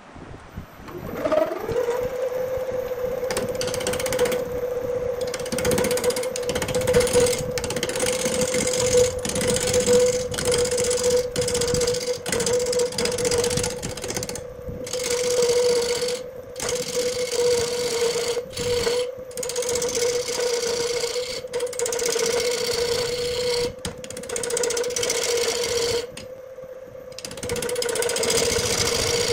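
Wood lathe spinning up to speed with a steady hum, then a turning gouge roughing down the spinning square wood blank: a loud, harsh scraping cut that breaks off briefly several times as the tool is eased away.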